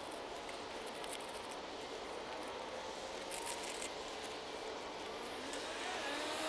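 Light rustling and scraping of dry plant debris and gravel being handled in a succulent bed, a few short crisp rustles over steady outdoor background noise.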